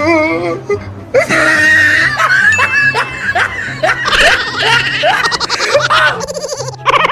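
Background music with a string of short rising laughs over it, one after another about every half second.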